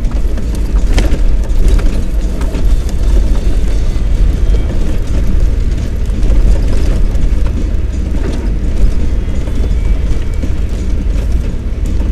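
Car driving over a rough, wet dirt track, heard from inside the cabin: a steady heavy low rumble of engine and tyres, with a few short knocks and rattles from the bumpy surface.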